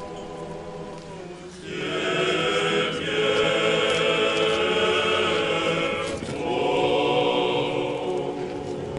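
Orthodox choir singing a funeral chant in long held chords. It swells louder about two seconds in, pauses briefly about six seconds in, then goes on.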